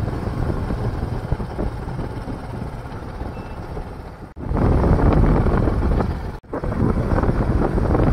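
Wind buffeting the microphone over the rumble of a vehicle moving along a road. The sound drops out briefly twice, about four and a half and six and a half seconds in, and is louder after the first break.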